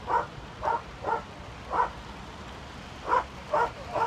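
A dog barking repeatedly: about seven sharp barks, with a pause of over a second in the middle.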